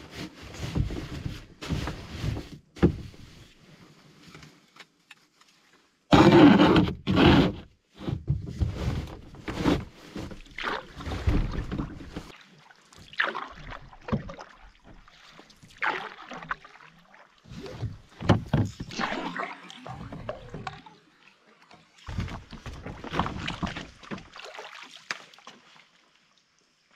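Canoe on the water: irregular paddle splashes and water against the hull. It comes as a series of short segments that start and stop abruptly.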